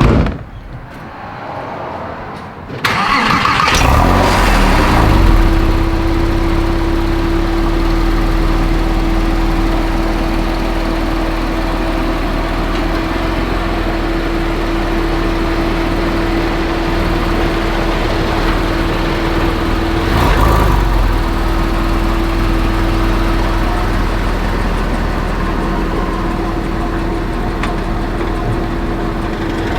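Porsche 911 Carrera S (997.1) flat-six engine cranked by the starter and catching about four seconds in, then idling steadily. A sharp knock comes right at the start, and there is a brief blip about two-thirds of the way through.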